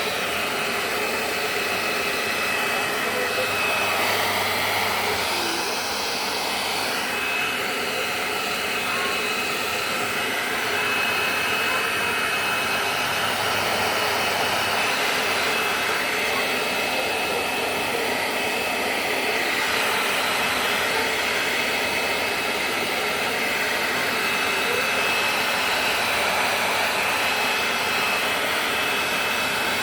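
Hair dryer blowing steadily, with a thin high whine over the rush of air.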